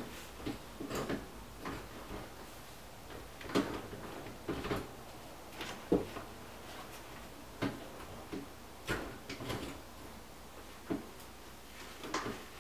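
Irregular knocks and clicks of hands at work, tools and parts being handled and set down, about a dozen sharp strikes at uneven intervals.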